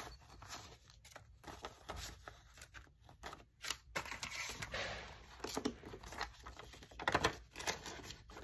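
Paper banknotes rustling and clear plastic binder pockets crinkling as cash is handled and slipped into the pockets, in irregular bursts that are loudest about seven seconds in.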